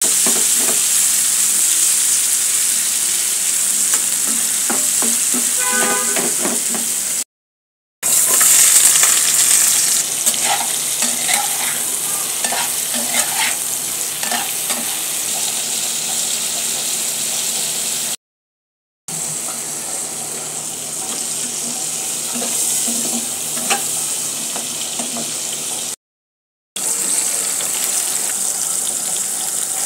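Prawns sizzling as they fry in oil in a pan, with a metal spatula stirring and scraping against the pan; near the end it is sliced onions sizzling in hot oil. The sound cuts out to silence three times, each for under a second.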